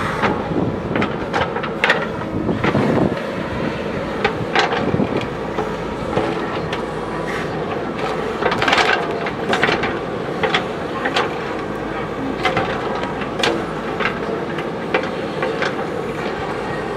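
JCB backhoe loader's diesel engine running steadily, with irregular sharp knocks and clanks throughout, a cluster of them about halfway through.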